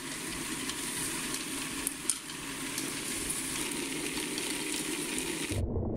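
Star-roller drum turning, with rice puffs coated in burst-charge mixture tumbling inside as a steady granular hiss and a couple of small clicks. The sound cuts off abruptly near the end and gives way to low music.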